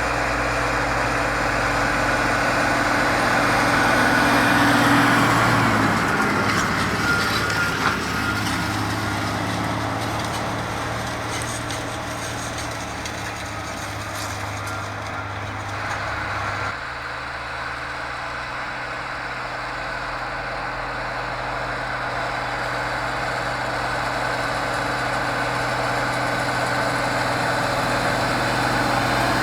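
Tractor engine running steadily, with a hiss of machinery noise above its low note; the sound shifts abruptly about two-thirds of the way through.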